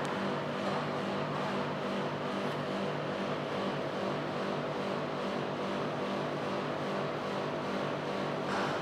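Daikin split air conditioner running: a steady whoosh of fan air with a low, even motor hum underneath.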